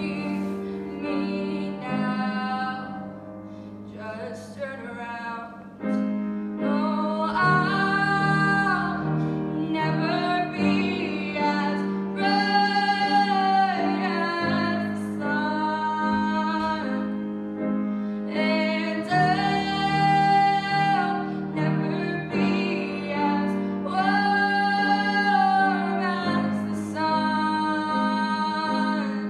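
A female voice singing with her own grand piano accompaniment, mostly long held notes over steady chords. The music softens briefly about four seconds in, then comes back fuller.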